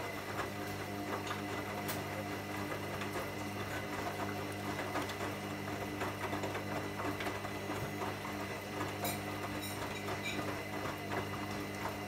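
Hoover front-loading washing machine in the main wash of a cotton 40 °C programme, with extra water from Aqua Plus: the drum motor hums steadily as the drum turns the wet laundry. Many small ticks and knocks run through it.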